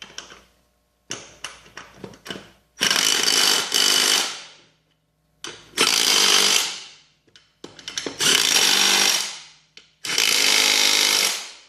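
Impact wrench driving in wheel bolts in four bursts of a second or two each, every burst trailing off as it winds down. A few light clicks of parts being handled come before them.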